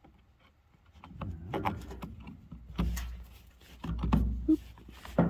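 Knocks, clicks and rubbing as chainsaw parts are handled, with several louder knocks about three, four and five seconds in.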